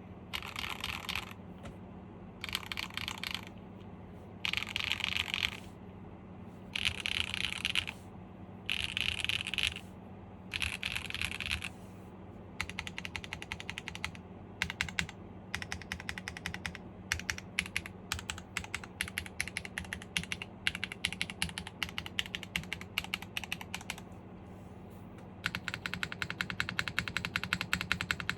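Top-mount aluminium-plate mechanical keyboard with stock Kailh BCP switches and GMK keycaps being typed on. First come about six bursts of rapid keystrokes, each about a second long, then steadier separate keystrokes, a short pause, and fast continuous typing near the end.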